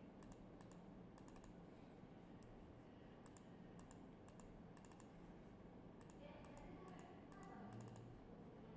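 Faint, irregular clicks of a computer mouse, often two or three close together, over quiet room hiss.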